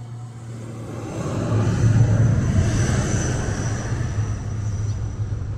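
Twin-turboprop airliner running its engines at high power: a steady propeller drone with a thin high turbine whine. It swells about a second in and slowly eases off toward the end.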